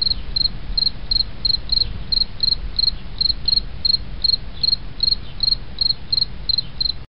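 A cricket chirping steadily, about three short chirps a second, over a low steady rumble; the sound cuts off suddenly near the end.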